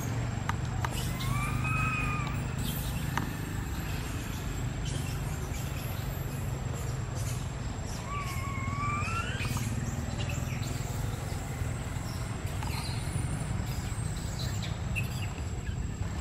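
Two short whistle-like animal calls, one about a second in that arches up and down and one about eight seconds in that dips and then rises, over a steady low rumble.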